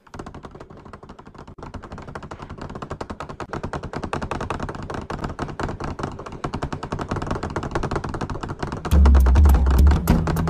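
Rapid, continuous tapping rattle of a school desk bench shaking under a pupil's trembling leg, a cartoon sound effect, growing louder. About nine seconds in, a loud deep rumble joins under the rattle.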